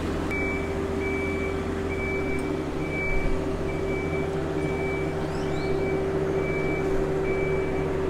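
Travel lift's diesel engine running steadily while it holds the hauled-out sailboat, with a vehicle warning beeper sounding a steady high beep about once every three-quarters of a second.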